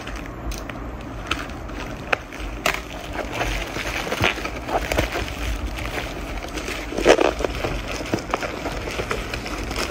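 Plastic parcel mailer and the plastic bag inside it being torn and handled, crinkling and rustling with irregular crackles, loudest about seven seconds in.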